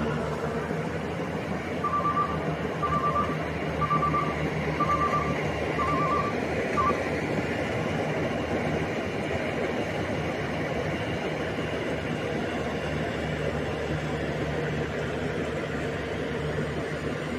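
Rice combine harvester's engine and threshing machinery running steadily. A reversing alarm beeps six times, about once a second, in the first half.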